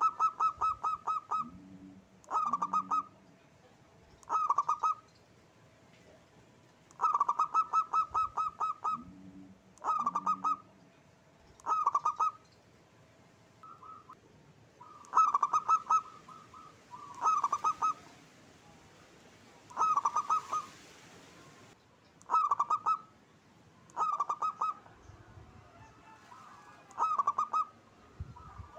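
Zebra dove (perkutut) singing: about a dozen short bursts of rapid staccato notes, each a second or so long, repeating every two seconds or so.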